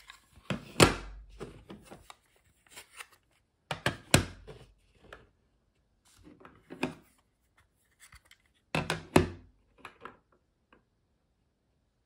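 Clear hard-plastic magnetic card holders being handled and set down on a tabletop: sharp plastic clacks and knocks in about five clusters a couple of seconds apart, with rubbing and sliding between them.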